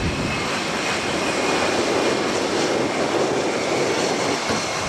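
Embraer Legacy 600 business jet passing close on its landing flare, its twin Rolls-Royce AE3007 turbofans making steady jet noise with a faint high whine.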